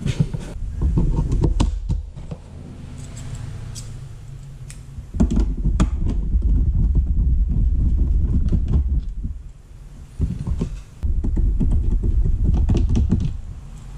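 Scattered plastic clicks and knocks from a mechanical keyboard being handled and worked on to open its case, over a low rumble that comes and goes.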